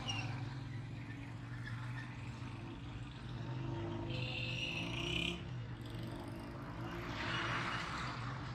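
Busy market street ambience, dominated by the steady hum of idling and passing motorcycle and auto-rickshaw engines. A brief high-pitched sound comes in about four seconds in and lasts a little over a second, and a rush of noise from a passing vehicle follows near the end.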